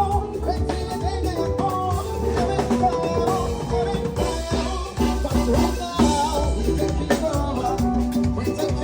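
Live band playing during a sound check: drum kit and bass under sustained melodic notes, with singing.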